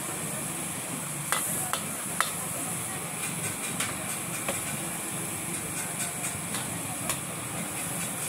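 Char kway teow sizzling in a hot wok while a metal spatula scrapes and clanks against the wok, with a few sharp clinks in the first few seconds.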